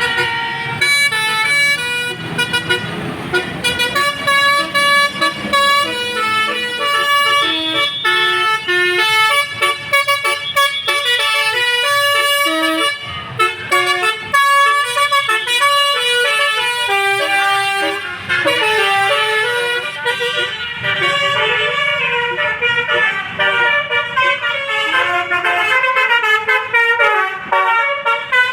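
Basuri multi-tone bus horn playing a melody of quick stepping notes, one tune after another with a few short breaks, over vehicle engine noise.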